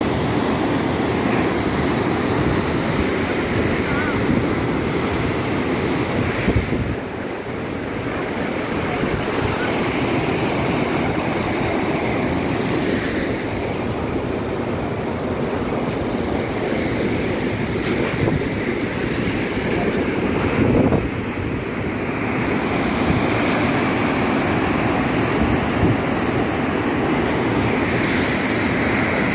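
Muddy floodwater rushing and churning down a concrete dam spillway, a steady loud wash of water noise, with wind buffeting the microphone now and then.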